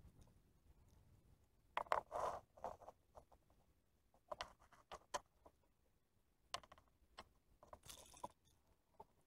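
Faint clicks, scrapes and rustles of small fishing tackle being handled, in short clusters about two seconds in, around four to five seconds, and again near eight seconds.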